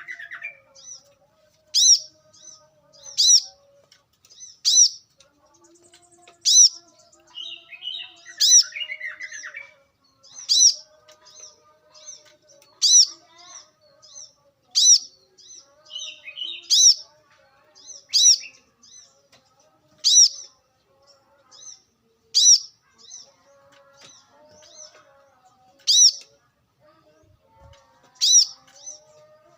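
Brown-throated sunbird (kolibri kelapa) calling: a sharp, high chirp repeated about every one and a half to two seconds, with bursts of softer twittering in between.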